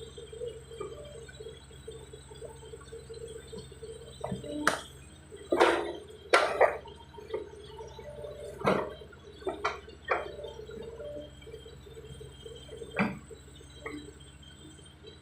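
Scattered sharp knocks and clanks from work on a mini excavator's track, about seven hits, the loudest bunched together in the middle, over a steady hum.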